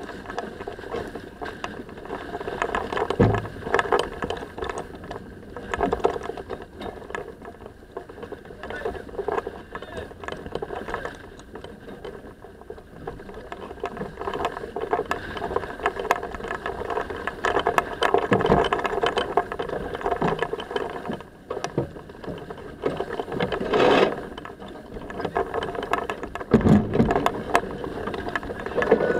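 A sailing yacht heeled under sail, with water rushing and splashing along the hull. Over it comes a run of mechanical clicking and rattling from the deck gear, and a few louder low thumps.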